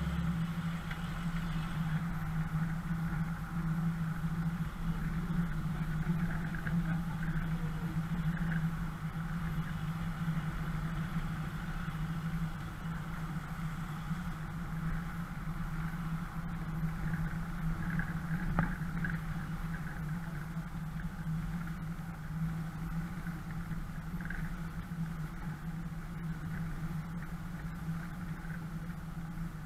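A 4x4's engine running at low, steady revs as the vehicle creeps along a rough dirt track, giving a constant low hum.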